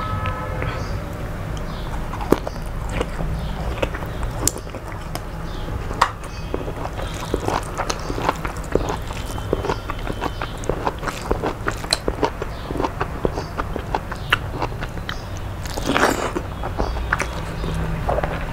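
Close-miked eating by hand: chewing and biting with many small wet mouth clicks and smacks, a louder chewing burst near the end, over a steady low hum.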